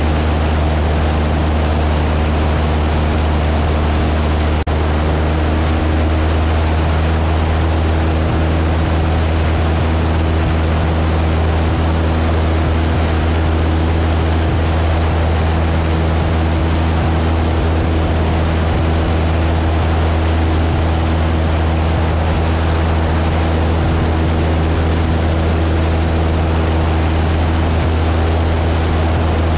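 Cessna 172's piston engine and propeller running steadily in flight, a constant low drone with a steady hum.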